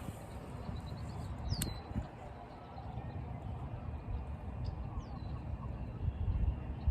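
Wild birds calling: a few short high chirps that sweep downward in pitch, the first about a second and a half in and two more close together near the end, over a steady low rumble.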